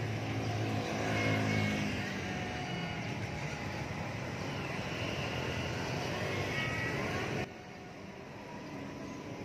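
Busy city street traffic: motorbike engines and other vehicles passing, loudest in the first couple of seconds as one goes by close. The sound drops abruptly about seven and a half seconds in.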